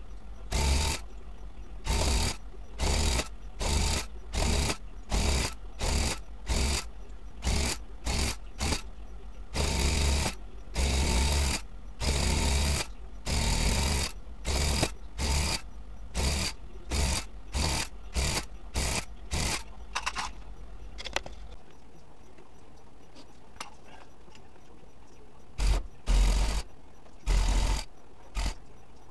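Hand-held tufting gun running in short bursts, stopping and starting many times as it punches blue yarn into the backing cloth. After a pause of a few seconds, a handful more bursts come near the end.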